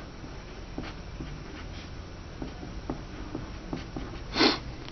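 Pencil writing on paper: a string of short, faint scratching strokes as an equation is written out. Near the end comes one brief, louder breathy sound, like a sniff or exhale.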